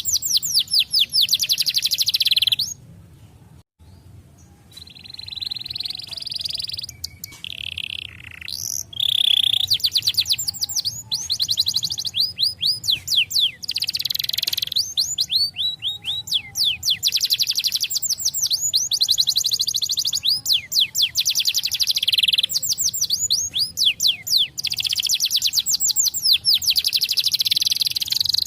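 Domestic canary singing a long song of rapid, high-pitched trills, each a fast run of repeated notes. The song breaks off briefly about three seconds in, then resumes.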